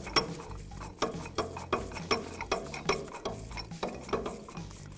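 The forcing screw of a C-frame ball joint press being turned down by hand, with a quick metallic ticking about three times a second. The press is being set up to push out the lower ball joint.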